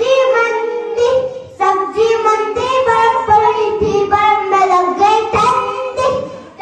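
A child singing a song unaccompanied, holding each note for a moment before moving to the next.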